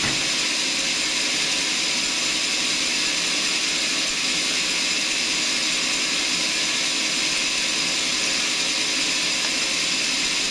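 Sawmill saw cutting a large mahogany log: a steady high hiss with several faint steady tones running under it.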